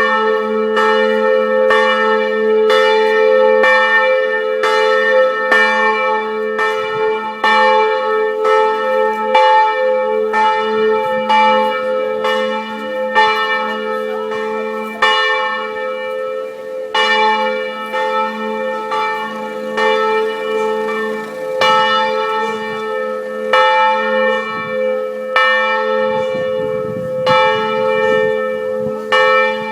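Church bells ringing a steady peal: a stroke about once a second, each tone ringing on and overlapping the next.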